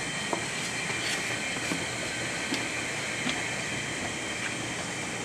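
Steady machinery hiss with a high, even hum over it and a few light clicks.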